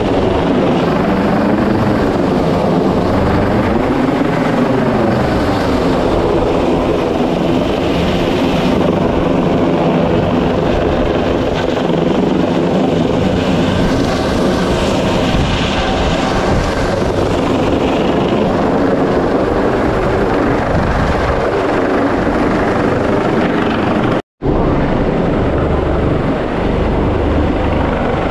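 Coast Guard MH-65 Dolphin helicopter hovering close overhead: loud, steady rotor and turbine noise whose pitch wavers up and down. The sound cuts out for an instant about four seconds before the end, then the helicopter noise resumes.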